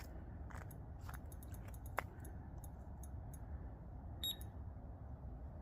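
A carp fishing bite alarm gives a single short, high electronic beep about four seconds in, the sign of line moving at the rod. A low steady rumble and a few faint clicks, one sharp click about two seconds in, sit underneath.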